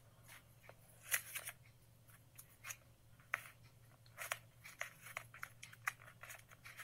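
Faint crinkling and rustling of folded coloured paper being handled, in about a dozen short, irregular crackles.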